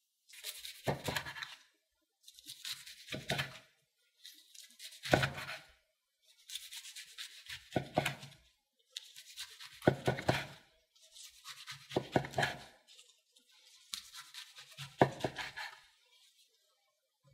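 A kitchen knife slicing through a gimbap roll wrapped in crisp dried seaweed, seven cuts about two seconds apart. Each cut is a short crackly sawing sound that ends with a knock of the blade on a wooden cutting board.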